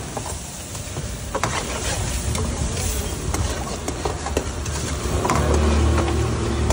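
Metal ladle stirring a steel wok of simmering chicken stew, knocking against the pan with a few sharp clinks, over a steady low rumble that grows louder about five seconds in.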